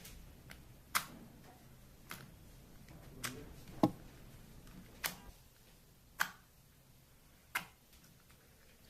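A run of about seven sharp, separate clicks at irregular intervals, a second or so apart, over a faint room background.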